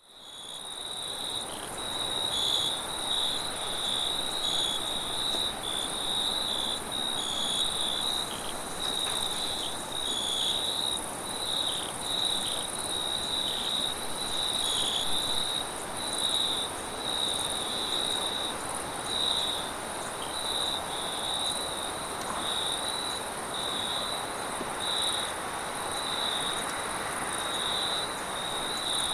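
Crickets chirping in a steady, pulsing chorus over a soft, even wind noise that swells and eases a little, fading in at the start.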